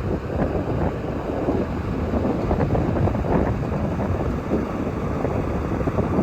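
Kobelco SK170LC excavator's four-cylinder diesel engine running steadily, with wind buffeting the microphone.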